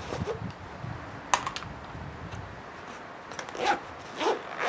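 Handling of a cordura bag: fabric rustling as a small folding knife is slid into an inside pocket, with one sharp click about a second in and two short scuffs near the end as the flap is pressed down.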